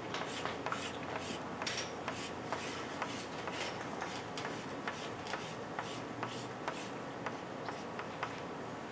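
Pastel stick scratching across a toned drawing board in short, quick hatching strokes, about three or four a second, easing off near the end.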